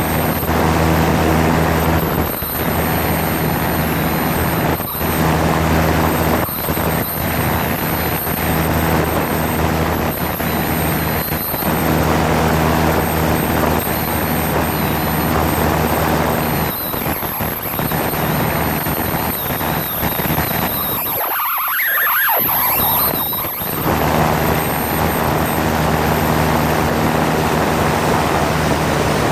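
Cessna 172's piston engine and propeller running steadily: a loud, even drone with a wash of noise over it. About two-thirds through, the low part of the drone drops out for about two seconds.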